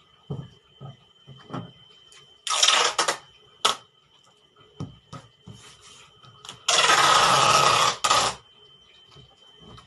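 Packing tape pulled off the roll to seal a cardboard box: a short loud rip about two and a half seconds in and a longer one of about a second and a half around seven seconds in, with light taps and rustles of hands on the cardboard between.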